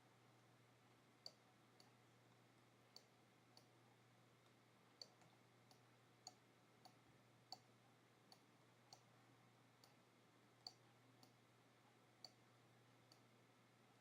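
Faint computer mouse clicks, about one a second at an uneven pace, over a low steady hum.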